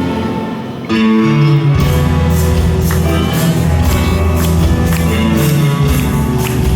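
Massed youth orchestra playing: sustained chords thin out briefly near the start, then the full ensemble comes back in about a second in over a steady percussion beat.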